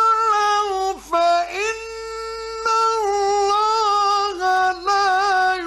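Male Quran reciter chanting in the melodic mujawwad style, one high voice holding long ornamented notes that waver in pitch, with brief breaks about a second in and again near the end.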